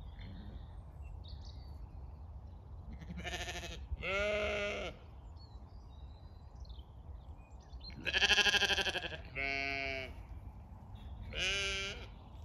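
Zwartbles sheep bleating as the flock walks up: five drawn-out bleats in three bunches, at different pitches from more than one sheep.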